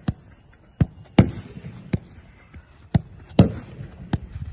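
A football being passed with the foot against rebound boards and coming back: a run of sharp knocks, about seven, some louder ones ringing on with an echo.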